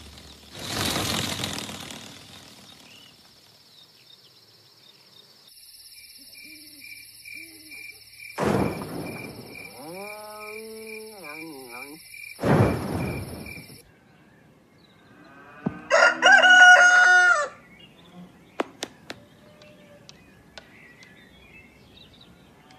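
A rooster crows once, loud and high-pitched, about two-thirds of the way through, followed by a few sharp ticks. Before it, a steady high pulsing chirp runs under two rushing swells and a short warbling glide.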